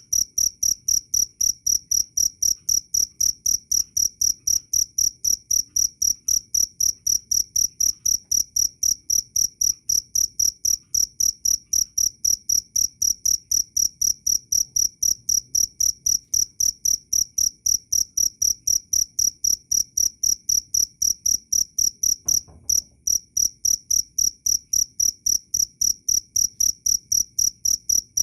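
Cricket chirping loudly and steadily, a high clear tone repeating at about three chirps a second, with a brief break about 22 seconds in.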